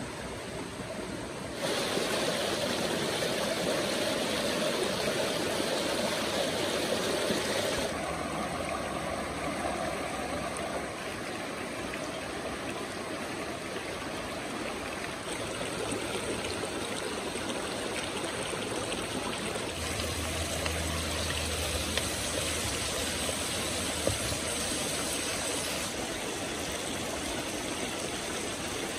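Shallow rocky river rushing steadily over stones.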